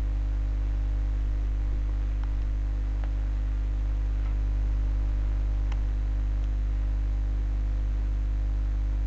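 Steady electrical mains hum with hiss from the recording microphone, with a few faint ticks.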